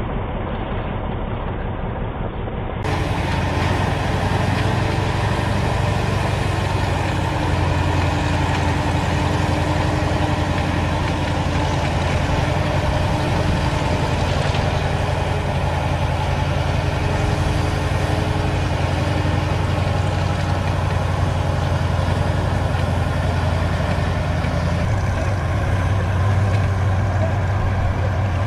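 Crawler bulldozer's diesel engine running steadily at an even low pitch as the machine wades through deep floodwater.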